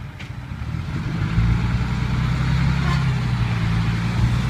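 Turbocharged diesel engine of a six-wheel dump truck running, getting louder over the first second and a half and then holding a loud, steady low note.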